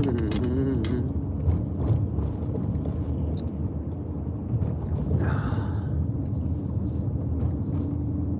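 Steady low road and engine rumble from inside a moving car, with a brief swell of hiss about five seconds in.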